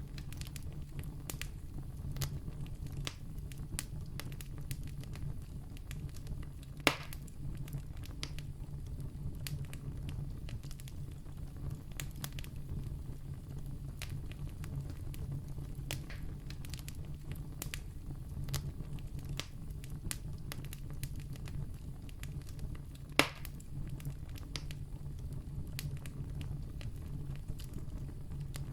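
Campfire crackling: a steady low rumble of burning under frequent small crackles, with two louder pops, one about seven seconds in and another later on.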